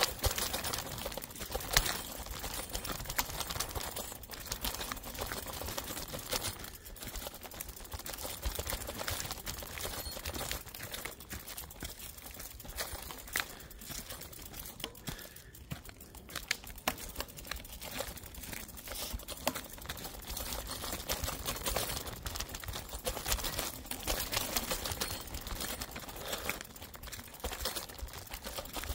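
Mountain bike running fast down a rough dirt trail: a dense, continuous rattle and clatter of the bike and its tyres over stones and roots, with a sharp knock about two seconds in.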